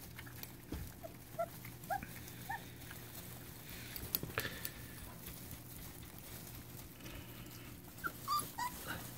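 Young goldendoodle puppies giving short, faint high squeaks and whimpers, a few about one to two and a half seconds in and more near the end, with a couple of sharp clicks a little past four seconds, over a faint steady hum.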